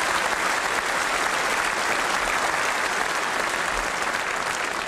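Crowd of spectators applauding steadily.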